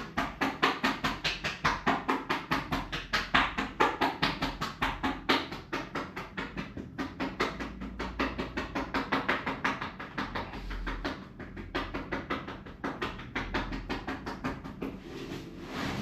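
Rapid, even hand strikes on a body, about five a second: percussive massage with chopping or slapping hands. The strikes weaken and become less regular in the last few seconds.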